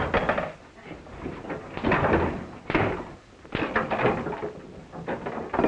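Fistfight: about five bursts of thuds, knocks and scuffling as two men grapple and their blows and bodies hit wooden furniture and the floor, on an early 1930s film soundtrack.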